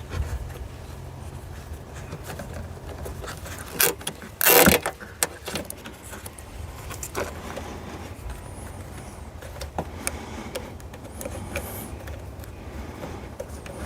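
Nylon zip-tie fasteners being worked through their buckles and pulled tight by hand: scattered small plastic clicks and handling noise, with one short, louder ratcheting rasp about four and a half seconds in.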